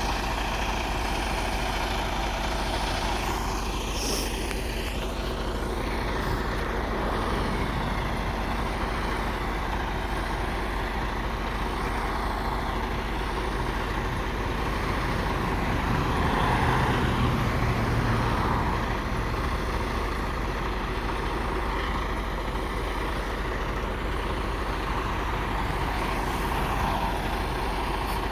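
Heavy diesel truck engines running steadily amid road traffic noise, swelling louder for a few seconds about halfway through.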